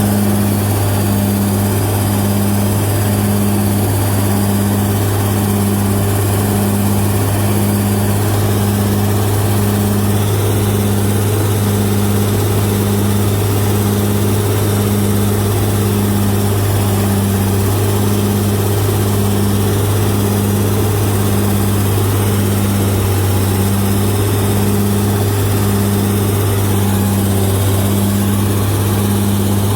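Bulldozer's diesel engine running steadily in a low drone, with an even throb about once every second and a half.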